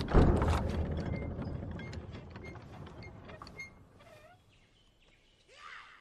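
A sudden loud crash followed by rattling and clattering that dies away over about four seconds.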